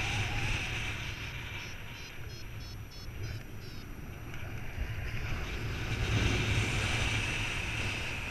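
Airflow buffeting the microphone of a camera on a flying paraglider pilot: a steady wind rush with a low rumble, easing off about two seconds in and building again around six seconds.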